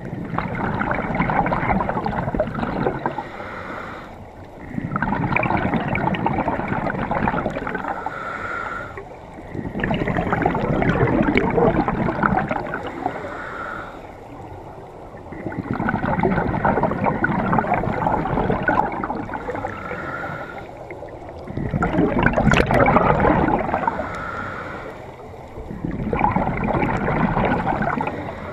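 Scuba regulator breathing: repeated cycles of hissing inhalation and rumbling exhaled bubbles, about six breaths, each surge lasting a few seconds, some ending in a short squeak from the regulator.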